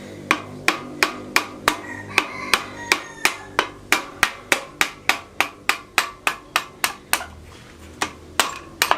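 Steady, rhythmic hammer blows, about three a second, knocking a part loose while the front wheel of a motorcycle is taken apart.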